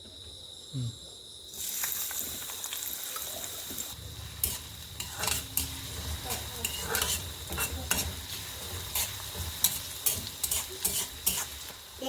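Food sizzling in a hot pan, the hiss starting about a second and a half in. From about four seconds in a spatula stirs it, with repeated scrapes and clicks against the pan.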